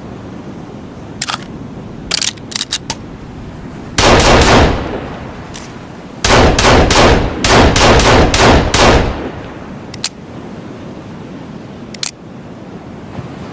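Pistol gunfire: a quick string of three or four shots about four seconds in, then a longer rapid string of shots lasting about three seconds. Short sharp clicks come before the first string and after the second.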